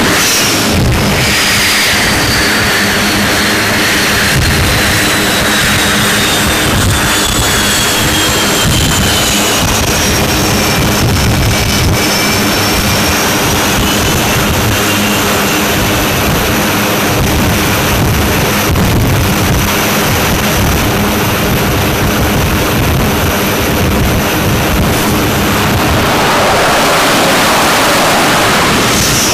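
US Navy F/A-18 Hornet twin turbofan jet engines running loud and steady, with a high whine that slowly falls in pitch and then rises a little.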